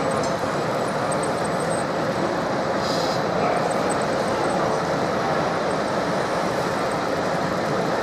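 Steady, even din of a busy exhibition hall, a dense rumbling noise with no distinct knocks or events.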